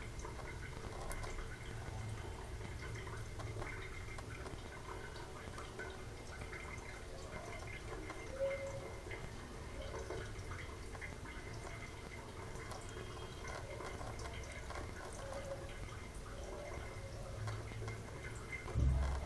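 Thin stream of tap water trickling and dripping into a stainless steel sink by the drain. A brief low thump comes just before the end.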